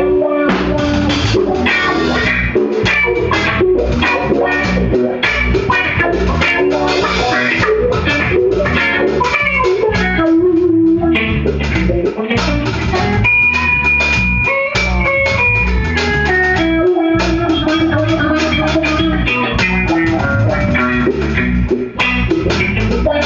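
A rock band playing live and loud: electric guitar over a drum kit and bass, with no singing. Around the middle the guitar holds a few long notes while the drums keep hitting steadily.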